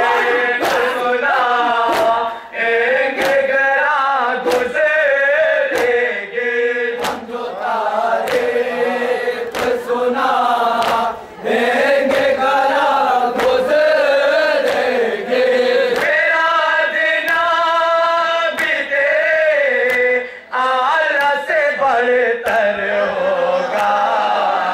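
Male voices chanting a nauha, a Shia mourning lament, into microphones, with short breaks between lines. Sharp slaps of matam, hands beating on chests, keep a beat about once a second.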